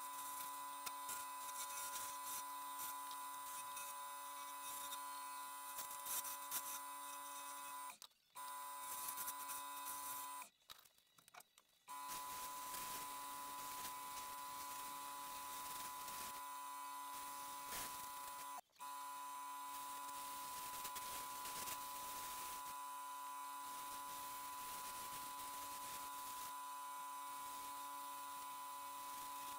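Wood lathe running steadily with a hum and high whine from its motor, and a faint hiss as abrasive paper is held against the spinning ash finial. The sound cuts out abruptly for a moment about 8 seconds in, for about a second and a half about 10 seconds in, and briefly again about 19 seconds in.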